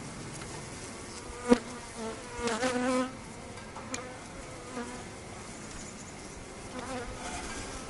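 Honey bees buzzing around an open hive box. One bee's louder droning hum passes close by about two and a half seconds in. There is a single sharp knock about a second and a half in.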